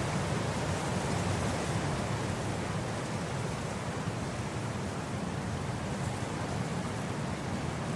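Wind blowing steadily across grass, an even rushing noise with a low rumble underneath.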